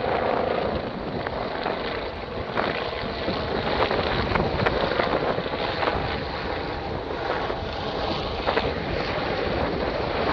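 RAF military helicopters flying overhead in formation, a steady distant rotor and engine drone, mixed with wind buffeting the microphone.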